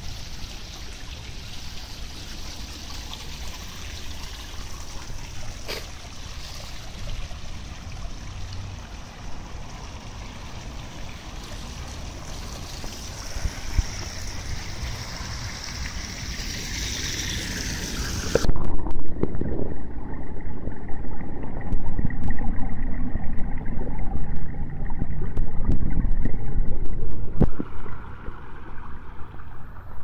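Water-wall fountain: water sheeting and splashing down a stone-tiled wall into its basin, a steady rushing hiss. About two-thirds of the way through, the sound turns abruptly muffled and louder, with a deep rumble and scattered clicks.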